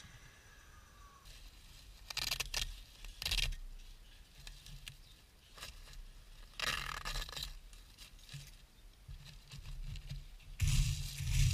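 Gloved hands scraping and shifting loose gravel stones along concrete kerb edging, in a few short bursts, loudest near the end.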